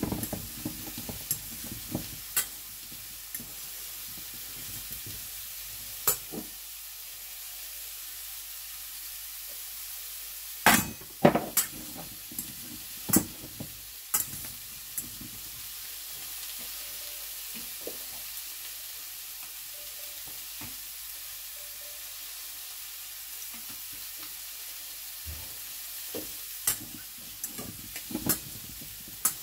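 Pork chops and sausages frying in a pan, with a steady high sizzle. Scattered sharp clicks and knocks of kitchen work sound over it, the loudest cluster about eleven to fourteen seconds in and more near the end.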